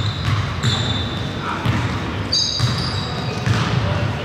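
Basketball being bounced on a gym court, with short high sneaker squeaks on the floor, one at the start and several about two and a half seconds in.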